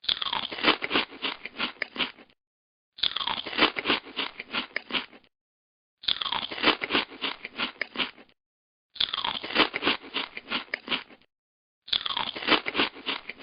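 Cartoon eating sound effect: a quick run of munching crunches, each opening with a falling tone. The same clip is repeated five times, about every three seconds, with silent gaps between.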